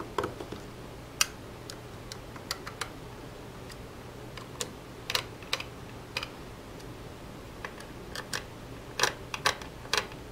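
Irregular small metallic clicks and taps as a screwdriver and copper pillar screws knock against a dome camera's metal mounting plate while the screws are being fitted.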